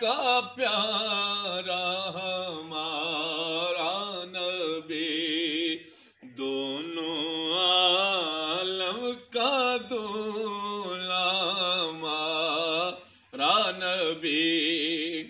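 A man singing an Urdu naat in long, drawn-out ornamented phrases with wavering pitch. The singing breaks off briefly about six, nine and thirteen seconds in.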